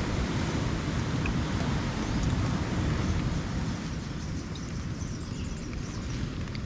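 Steady wind buffeting the microphone on an open beach, a low rushing noise.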